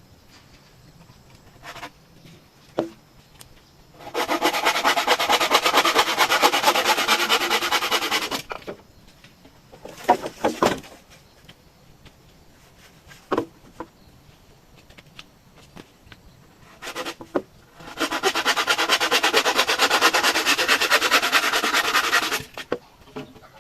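A hand tool rasping on bamboo in two long bouts of about four seconds each, with a few sharp knocks in between.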